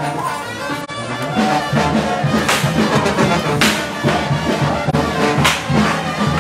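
A brass band playing a tune, with several crashing percussion hits along the way.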